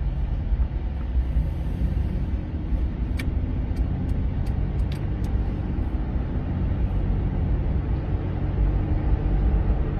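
Car driving along the road, heard inside the cabin with a rear window open: a steady low rumble of road and wind noise, with a few faint light clicks about halfway through.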